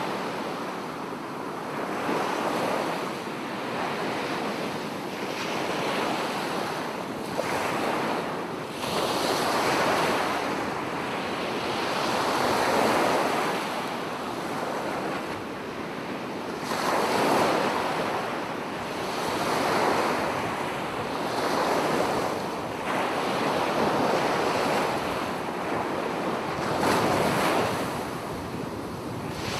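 Sea surf breaking and washing up a flat sandy beach, the rush swelling and easing every few seconds, with wind blowing across the microphone.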